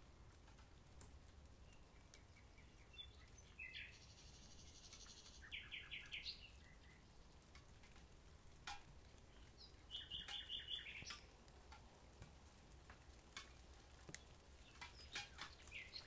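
A common nightingale singing faintly in separate phrases of rapid repeated notes and trills, one phrase about four to six seconds in and another about ten seconds in, with short gaps between them. A few faint clicks are scattered through.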